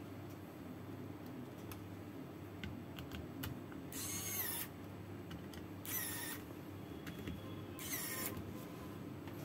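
Pen-style electric precision screwdriver driving the screws that fasten the circuit board back onto a hard drive: three short high-pitched whirs about two seconds apart. Small clicks of the bit and board come in between.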